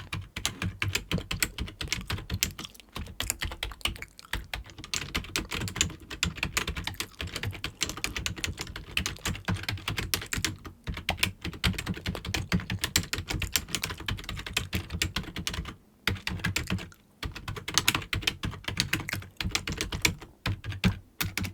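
Fast, continuous typing on a computer keyboard, many key clicks a second, with two brief pauses about two-thirds of the way through.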